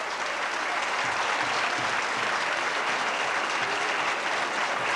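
A roomful of people applauding, dense clapping that holds steady throughout.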